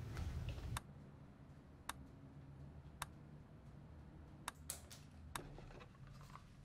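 A few short, sharp clicks, the first three about a second apart, over a faint low hum of room tone.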